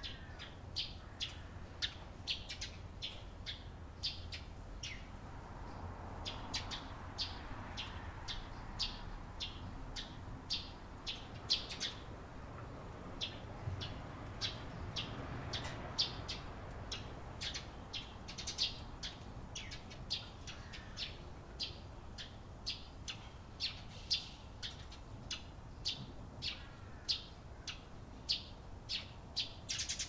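A flock of Eurasian tree sparrows chirping: many short, high chirps, about two a second, overlapping from several birds.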